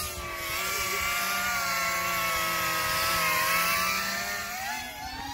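5-inch FPV quadcopter's motors and propellers whining as it flies low close by, a steady buzzing whine of several tones together. The pitch rises near the end as it throttles up.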